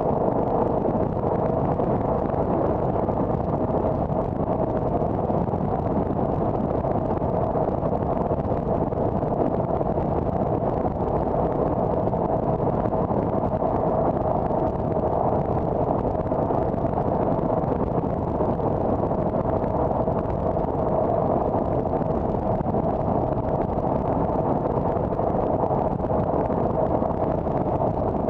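A car driving at steady speed: an even drone of road and engine noise with a constant hum, heard from inside the cabin.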